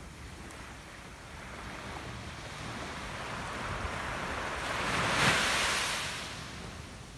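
Sea wave breaking on the beach: the surf builds, peaks about five seconds in and washes away, with a low wind rumble on the microphone.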